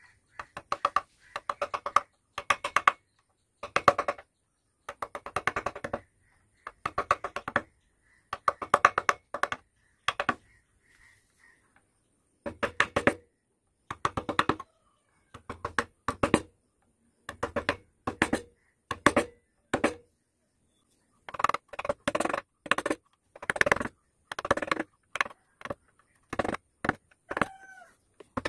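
Wood carving gouge being driven into hardwood with quick bursts of sharp taps, a cluster of strikes about once a second with a few short pauses.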